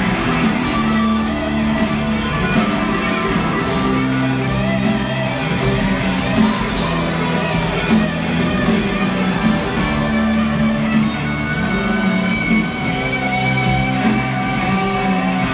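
Live rock band playing a slow song, with electric guitar to the fore and steady held chords, heard from the stands of a stadium concert.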